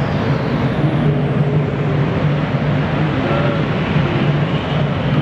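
Steady rumble and rushing noise of a ship under way at sea, with a constant low drone beneath the noise.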